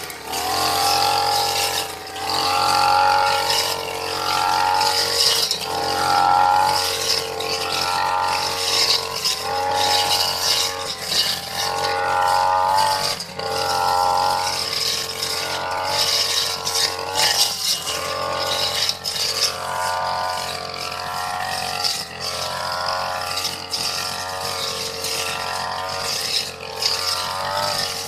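Petrol brush cutter running with a cutting blade through tall grass. The engine revs up and falls back every second or two as the blade is swung from side to side.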